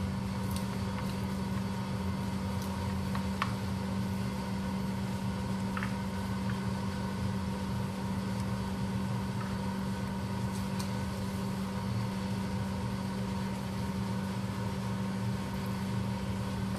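Steady low machine hum, as of a running fan or appliance motor, holding an even pitch and level throughout, with a few faint small ticks.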